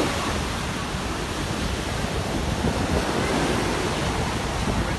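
Sea waves breaking and washing up a sandy shore in a steady surf wash, with wind buffeting the microphone.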